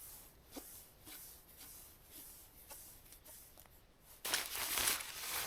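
Faint crunches, then about four seconds in a loud crinkling rustle as the tent's fabric is handled and gathered up.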